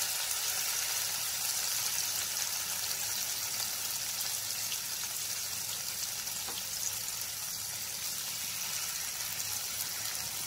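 Spice-coated paneer pieces shallow-frying in hot oil in a pan on a medium flame: a steady sizzle with a few faint crackles.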